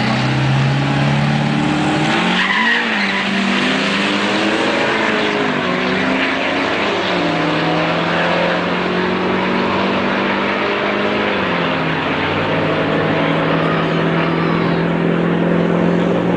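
Two pickup trucks at full throttle down a drag strip, one of them a diesel overfuelled so that it rolls black smoke. The engine pitch climbs in long pulls and drops back at each upshift, several times over.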